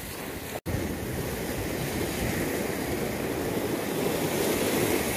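Steady wash of sea waves with wind buffeting the microphone; the sound drops out for an instant about half a second in, then the same steady noise carries on.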